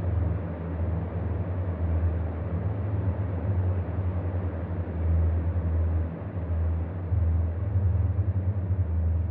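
A low, steady rumble: a deep hum that wavers in strength, with a hiss above it.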